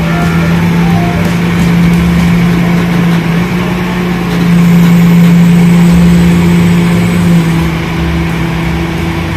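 Large Caterpillar forklift's engine running steadily under load as it pulls a truck, with a steady low hum that grows louder for a few seconds in the middle.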